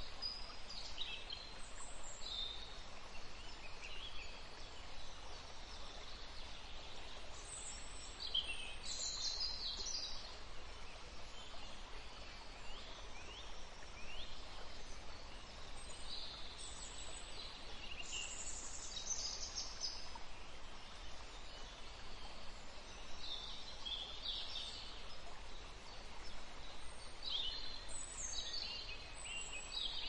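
Rainforest ambience: many birds calling in scattered clusters of short high chirps and downward-sliding notes, over a steady background hiss.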